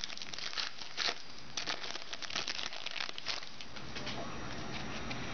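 An opened foil trading-card pack and its cards being handled: a dense run of small crinkles and crackles that thins out after about three and a half seconds.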